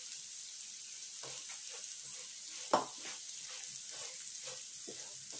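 Thambakaya pieces frying in a kadai with a steady sizzle, stirred with a spatula in irregular scraping strokes. About three seconds in, one sharp clack of the spatula against the pan.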